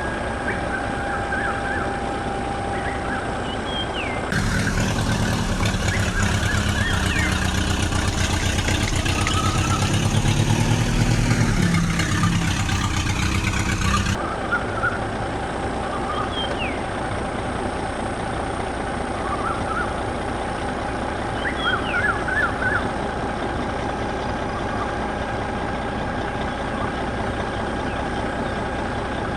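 Tractor engine running, louder and deeper for about ten seconds starting about four seconds in, then cutting back abruptly. Short high chirps sound over it now and then.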